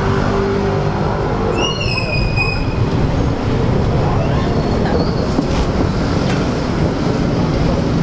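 Loud, steady rumble of traffic on a busy street, with a single high squeal lasting about a second, roughly two seconds in.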